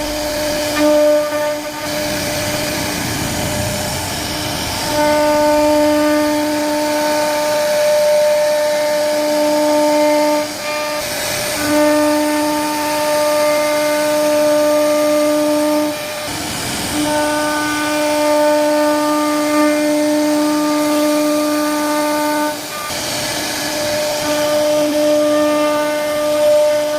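CNC wood-carving router cutting a wooden door panel: a steady high whine that breaks off several times, with a rougher rushing noise in each break.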